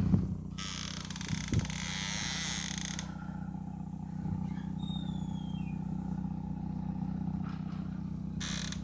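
Steady low mechanical hum, like a motor running, with a hiss of noise for a couple of seconds near the start and a faint short falling whistle about halfway through.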